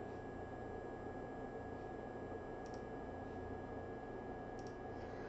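A few faint computer mouse clicks, spaced a second or two apart, over steady low hiss and a faint high whine.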